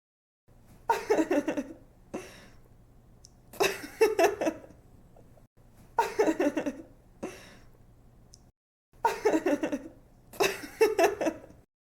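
A young woman laughing in about five bouts of quick giggles, each with rapid pulses, over a faint steady hum.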